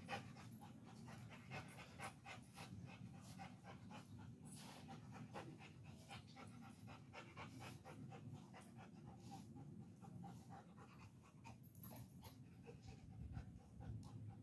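A dog panting steadily and rapidly, faint but continuous.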